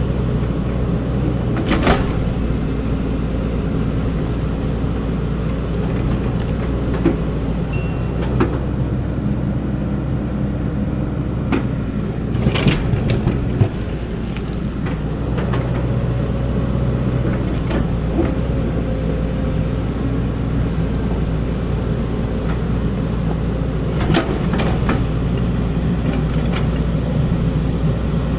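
Hydraulic excavator's diesel engine running steadily while digging, with a few sharp knocks and clanks scattered through it.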